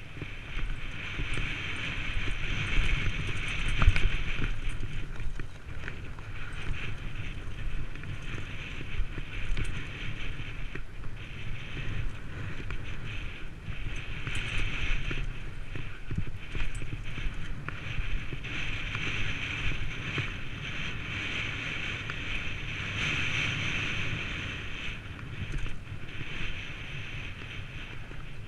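Downhill mountain bike descending a rough, stony dirt track: wind rushing over the microphone, with rattling and knocks from the tyres and frame over stones. The loudest knock comes about four seconds in.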